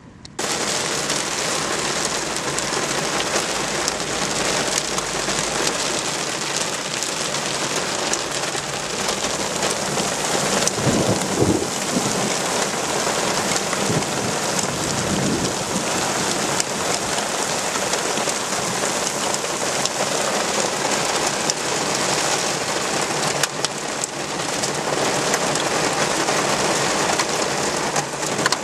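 Heavy thunderstorm rain pouring down steadily, setting in abruptly just after the start. A low rumble of thunder rises and fades about ten to twelve seconds in, with a weaker one a few seconds later.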